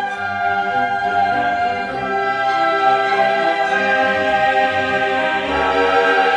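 Orchestral background music with a choir, held notes swelling steadily.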